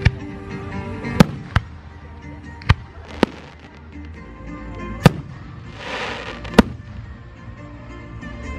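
Aerial fireworks shells bursting overhead: about seven sharp bangs at uneven intervals, with a hissing swell that rises and fades around the middle.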